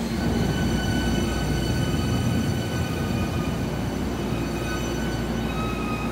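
Hankyu electric train running slowly at an underground platform: a low rumble with several steady high-pitched squealing tones over it, shifting slightly near the end.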